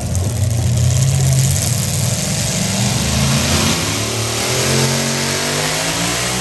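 Modified pulling tractor's engine running loud at high revs while hooked to the sled, its pitch climbing over the last couple of seconds.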